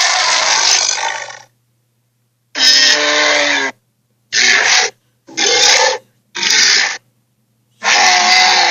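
Fantasy-creature roar sound effects: a series of raspy roars and growls with dead silence between them. One call ends about a second and a half in, then five shorter calls follow, some with a clear pitch.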